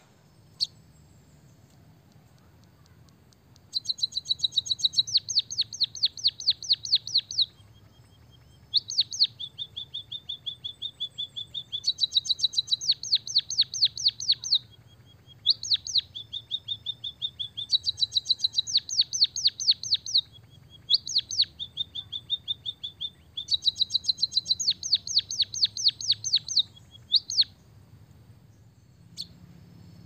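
White-headed munia singing learned canary song: fast trills of sharp falling chirps, several a second, in phrases of a few seconds broken by short pauses with a thin held note.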